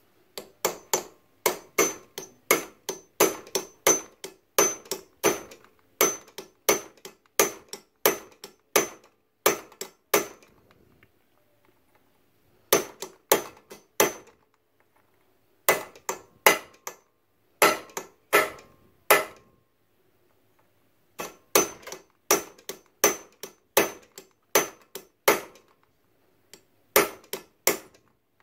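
Steel hammer blows on a flat-blade screwdriver used as a chisel against a motorcycle drive-chain link, about three strikes a second in runs with short pauses. Each strike gives a sharp metal clink with a brief high ring. The blows are meant to split the riveted pin so the stretched chain can be shortened.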